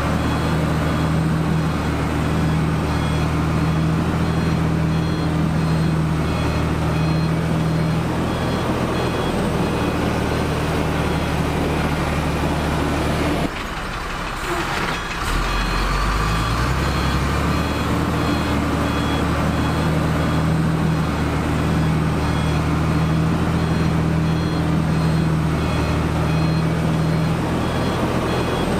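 Heavy diesel earthmoving machinery running with a reversing alarm giving steady repeated beeps. About halfway through the sound drops away for a moment, then an engine's note rises as it picks up. The beeping starts again in the last third.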